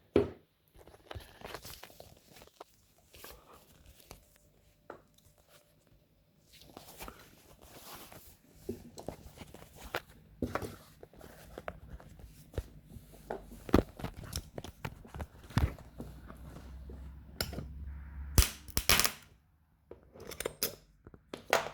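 Homemade spot welder built from microwave oven transformers firing several short weld pulses, each a sharp snap, among irregular clicks and rustling from handling the work piece, over a faint steady low hum.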